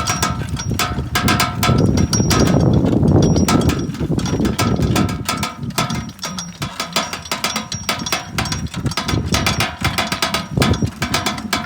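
Bull-drawn wheat seed drill at work: dense, rapid metallic clinking and jingling over a low rumble, which is heaviest in the first few seconds.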